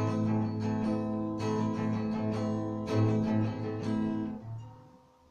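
Acoustic guitar strumming chords in an instrumental passage of a song, with a fresh stroke every second or so; the last chord dies away near the end.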